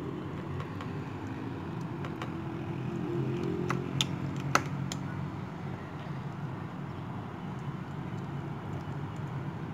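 A metal spoon clicks a few times against a tray and tin about four seconds in, over a steady low hum.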